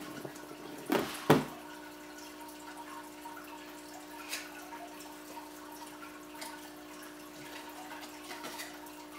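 Aquarium filter running: a steady hum with water trickling and dripping. Two sharp knocks from handling the shoebox and paper about a second in.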